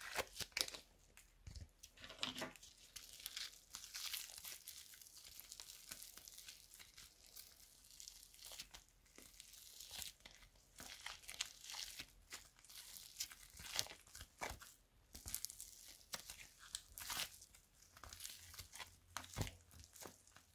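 Sticky slime made from mouse-glue paste with polystyrene foam beads being kneaded and pulled apart by hand: faint, irregular sticky tearing and crackling as the beads squash and the still-tacky mass stretches.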